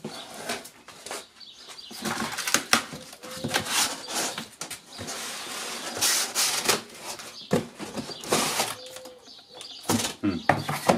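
Cardboard shipping box being opened and unpacked: flaps pulled open and rustling, cardboard scraping, and irregular knocks as the packaging is handled.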